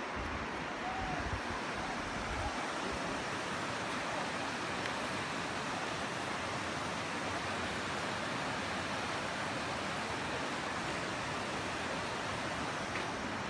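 Shallow mountain river rushing over rocks through rapids: a steady, even rush of water.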